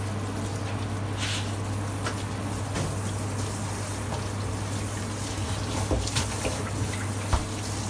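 Steady hum and hiss of kitchen machinery, with a few light clicks and taps as hands work over a stainless-steel tray, the sharpest near the end.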